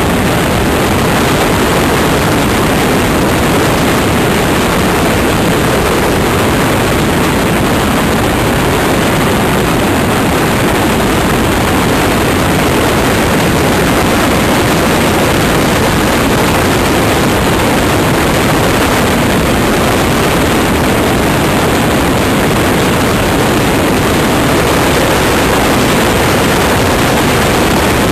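Loud, steady rush of airflow buffeting the microphone of a compact camera riding on a model motor glider in flight, with no clear motor tone.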